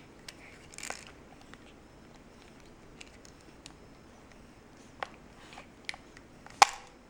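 Capuchin monkey biting and prying at a plastic TV remote control: scattered sharp plastic clicks and snaps, about half a dozen, the loudest a crack near the end, with a brief rustle about a second in.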